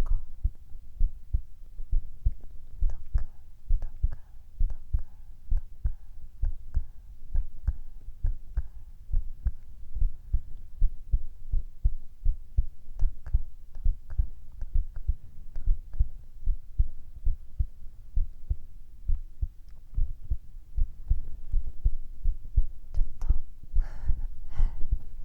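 Human heartbeat picked up close to the chest: a steady, regular rhythm of low lub-dub thumps.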